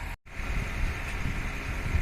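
Amphibious excavator's engine running steadily with a low rumble. Just after the start the sound cuts out completely for a moment, then resumes.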